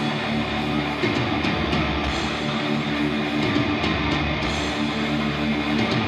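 Live metal band playing loud, with distorted electric guitars to the fore.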